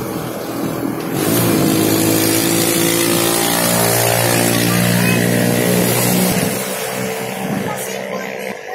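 A motor vehicle engine running loud and steady from about a second in, then dying down about six and a half seconds in.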